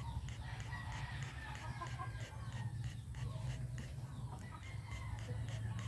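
Chickens clucking faintly over a steady low hum.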